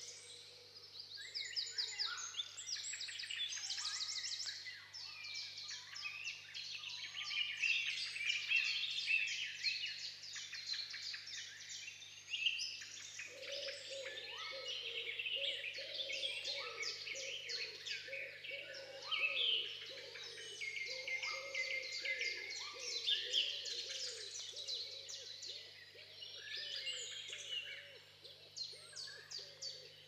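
Several songbirds singing at once, a dense chorus of chirps and fast trills. A lower, wavering sound joins about halfway through.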